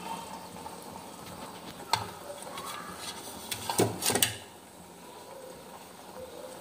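A wire-mesh skimmer clicking and clattering against a metal kadai and a ceramic plate as fried fish pieces are lifted out and tipped onto the plate. There is a sharp click about two seconds in and a short burst of clatter around four seconds, over a low steady hiss.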